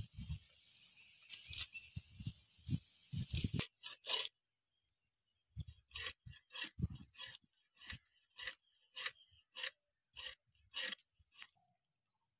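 Scales being scraped off a small bele fish (river goby) by drawing it against the upright blade of a boti: a run of short scraping strokes, about two a second, broken by a short pause about four seconds in.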